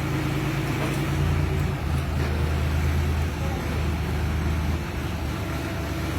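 Crane engine running with a steady low drone, its note shifting a little about a second in and again near the end.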